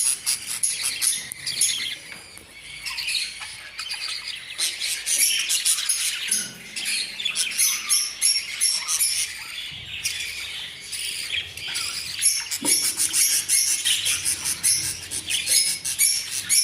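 Budgerigars chattering: many quick, high chirps and squawks overlapping without a break.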